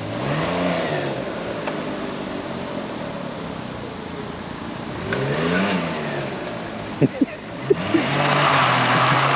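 Can-Am Ryker 900's three-cylinder engine revving up and easing off twice as the trike accelerates, then running steadily with a rush of noise near the end. A few sharp knocks sound about seven seconds in.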